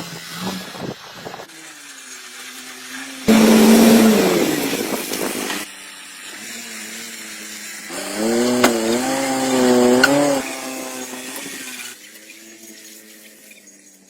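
Car engine running and revving in several short clips cut together, its pitch rising and falling, with a loud noisy burst a few seconds in.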